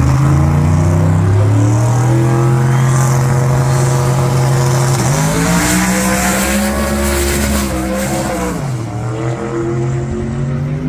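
Drag cars' engines held at high revs on the starting line, then launching and pulling hard down the strip, the engine note climbing about five seconds in and dropping sharply near the end as the car shifts.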